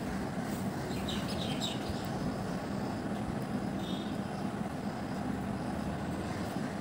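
Steady background rumble with a low hum, with a few brief high chirps about a second in and again near the middle.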